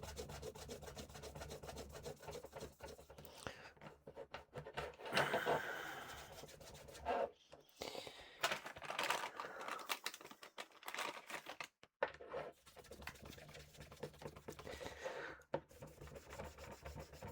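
A cleaning wipe rubbing and scrubbing over a plastic laptop power supply, with scratchy handling noise and many small clicks.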